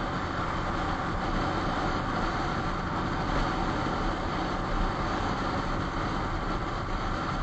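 Steady wind rush and road noise on a camera riding along on a moving vehicle, with a low rumble underneath and no change in pace.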